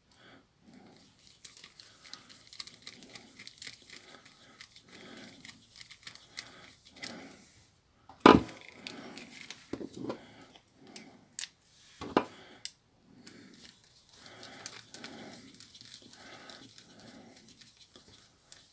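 Tiny screws being driven into the plastic housing of a Nokia 6310i with a small hand screwdriver: soft rubbing and scraping repeats about twice a second as the driver is turned. A few sharp clicks and taps come in between, the loudest about eight seconds in.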